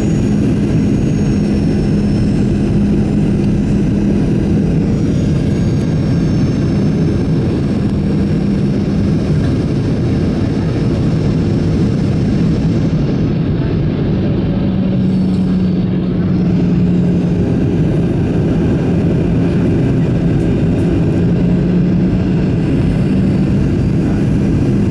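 Boeing 737-900ER cabin noise heard from inside the cabin during the approach: the steady sound of the CFM56 jet engines and rushing air, with a low steady drone underneath.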